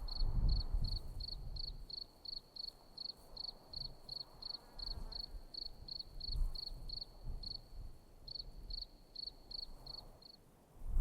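A cricket chirping in an even rhythm, about four to five high chirps a second, which stops shortly before the end. Soft low rumbling runs underneath.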